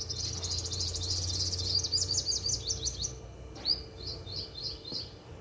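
Songbird singing: a fast, high trill that breaks into a quick run of separate chirps, followed by a few spaced single chirps, over a steady low background hum.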